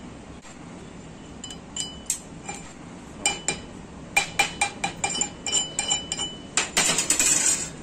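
Wire brush knocking and scrubbing the slag off a freshly welded 7018 vertical bead on a steel test plate: sharp metallic clinks, each with a brief ring from the plate, coming quickly for a couple of seconds in the middle, then a short burst of steady scraping near the end.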